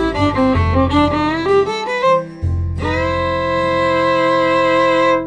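Instrumental background music: a quick melody of short notes over a steady bass, then a long held chord from about two and a half seconds in that cuts off at the end.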